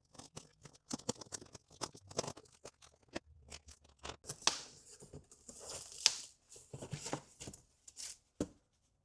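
A cardboard shipping box being opened by hand: packing tape tearing and cardboard and packaging scraping and rustling in an irregular run of short rips, with two sharper rips about four and a half and six seconds in.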